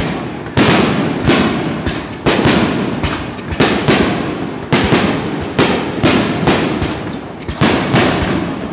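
Fireworks display: aerial shells bursting one after another, a sharp bang about twice a second, each fading out over a fraction of a second.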